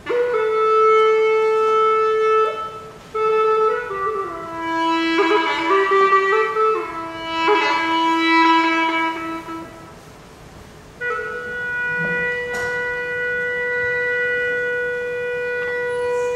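Solo end-blown wooden wind instrument playing a slow melody with a reedy, rich tone. It opens on a held note, moves into a falling, ornamented phrase, pauses briefly around ten seconds in, then holds one long steady note.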